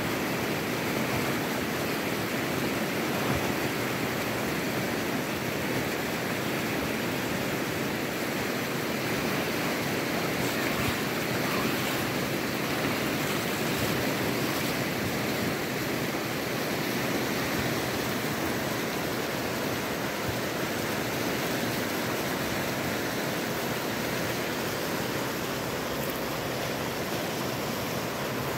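Rapids of a river running high and fast, whitewater rushing over rocks in a steady, unbroken hiss.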